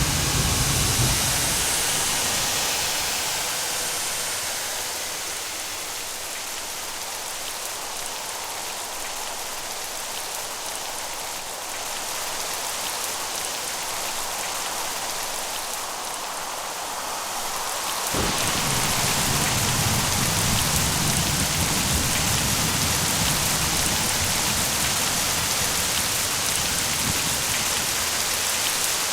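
Steady rain falling, with a low thunder rumble dying away in the first couple of seconds. About two-thirds of the way through, the rain abruptly turns louder and fuller.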